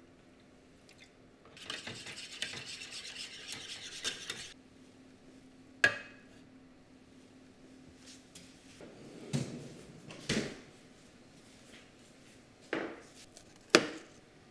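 Stirring in a metal mess tin for about three seconds, a busy scraping, followed by scattered clicks and knocks of utensils being set down and a plastic food container's lid being pried open, with one sharp click near the end the loudest.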